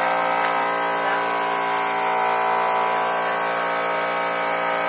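A motor running steadily, giving an even whine made of many tones that does not change.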